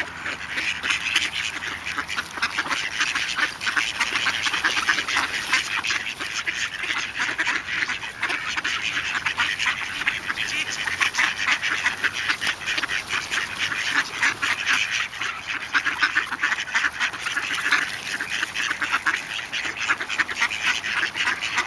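A flock of ducks quacking, many calls overlapping in a dense, continuous chatter.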